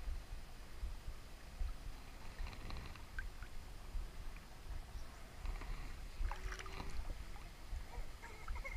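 River water sloshing and splashing as someone wades and works by hand underwater, with an irregular low rumble and a few faint clicks about six to seven seconds in.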